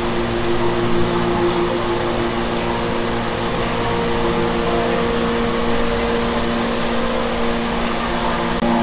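Fish-paste encrusting machines and their conveyor belts running: a steady mechanical hum with several held tones and no distinct strokes.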